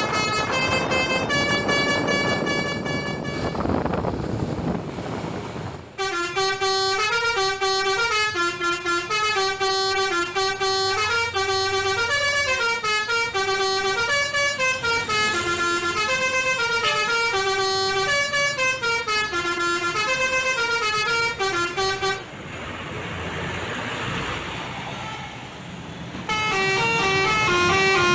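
Telolet bus horn playing fast multi-note tunes, the tones stepping up and down in pitch in long runs, broken twice by a few seconds of rushing noise.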